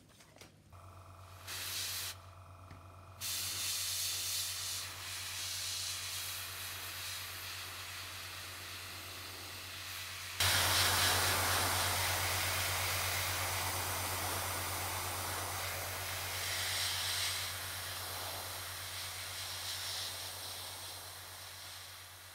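Airbrush spraying acrylic paint: a hiss of air and paint that comes in short spurts at first, then runs steadily and gets louder from about ten seconds in. A steady low hum lies underneath.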